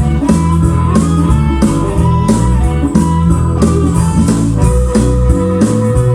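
Blues-flavoured instrumental with electric guitar, bass and a steady beat, played back over hi-fi speakers driven by a 1970s stereo receiver.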